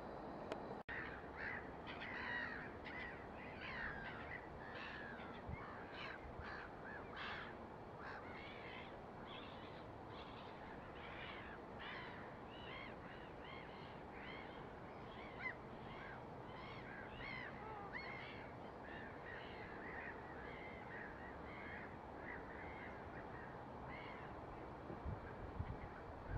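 A flock of birds calling: many short, overlapping calls, densest in the first half and thinning out later, over a faint steady hiss.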